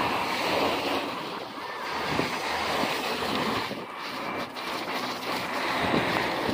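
Road traffic on a busy street, with wind buffeting the microphone: a steady, rushing noise that dips about four seconds in.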